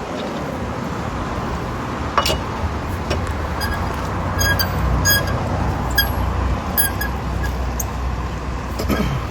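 Steady roadside traffic rumble with a series of short metallic clinks, roughly one a second, as a lug wrench works the lug nuts on a car's spare wheel.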